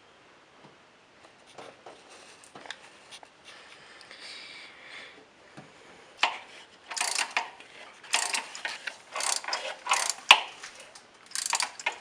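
Ratcheting tool clicking in repeated strokes, faint and scattered at first, then louder and quicker from about halfway through.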